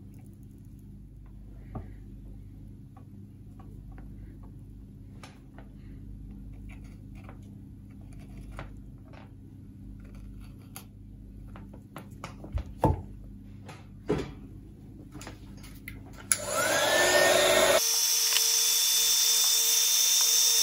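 Scattered small clicks and taps as a coax-to-ladder-line joint is soldered, over a low steady hum. About sixteen seconds in, a heat gun switches on: its fan spins up with a rising whine into a loud, steady blowing rush, shrinking heat-shrink tubing over the soldered joint.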